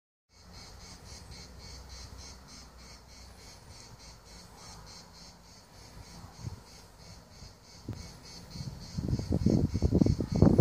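Insects chirping in a steady, evenly pulsing high rhythm of a few pulses a second, faint over a low background hum. From about nine seconds in, a louder irregular rustling and knocking noise rises.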